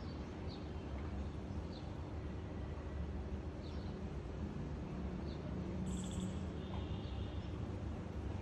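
Faint, brief high chirps of small birds, a few seconds apart, over a steady low outdoor rumble, with a short rapid trill about six seconds in.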